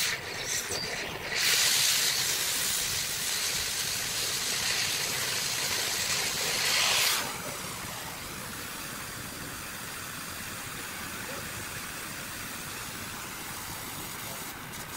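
Gas cutting torch hissing: a loud rush of gas for about six seconds that cuts off sharply, then a steadier, quieter hiss of the burning torch.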